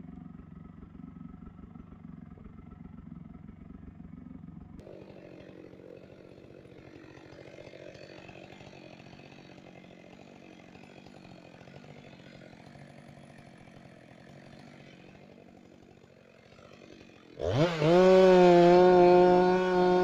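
Chainsaw idling quietly, then revved sharply to full throttle about 17 seconds in and running loud and steady as it cuts into the butt end of a felled conifer.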